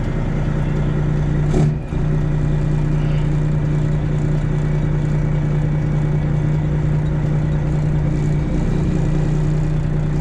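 Semi truck's diesel engine running with a steady low hum, with one brief sharp noise about one and a half seconds in.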